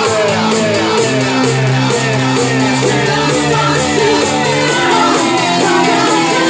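Loud electronic dance music from a DJ set, with held synth chords and a steady high ticking beat. A crowd shouts over it.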